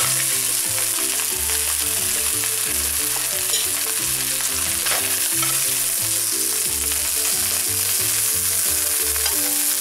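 Turkey breast slices sizzling steadily in hot oil in a non-stick frying pan, cooked through and being lifted out.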